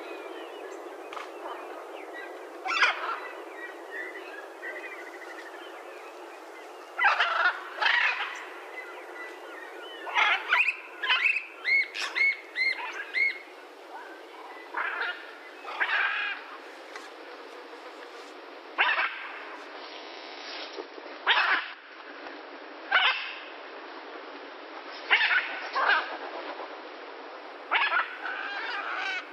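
Blue macaws calling: loud, strident squawks, singly or in quick runs of several, every few seconds over a steady background hiss.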